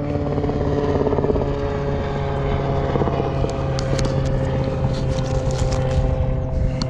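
A steady engine drone holding one even pitch, with a few light clicks and knocks of the fishing rod and spinning reel being handled in the second half.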